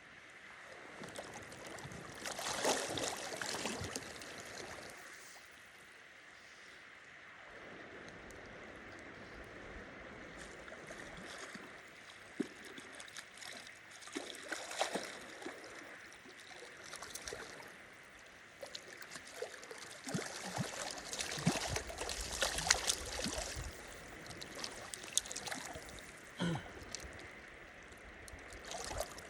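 River water running steadily, broken by several louder sudden splashes and knocks, the strongest about three quarters of the way through.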